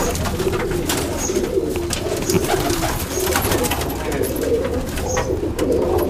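A flock of domestic high-flying pigeons cooing together inside a small loft, a continuous overlapping murmur with scattered sharp clicks.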